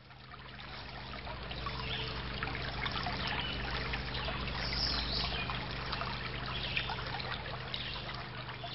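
Water trickling and babbling as in a small stream, fading up over the first couple of seconds, with a low steady hum underneath.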